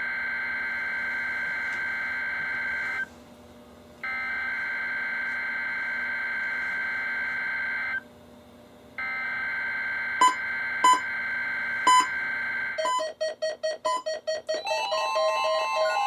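NOAA Weather Radio SAME alert-header data tones sent three times, each burst about four seconds long with a second's break between them, as heard through weather radio receivers. Near the end, several radios beep sharply three times, then start pulsing and sound a chorus of alert tones together as they decode the Required Weekly Test.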